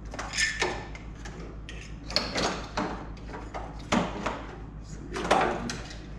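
Wiring harness being handled and routed: irregular rustling of plastic loom and a string of sharp clicks and snaps from the connectors, over a steady low hum.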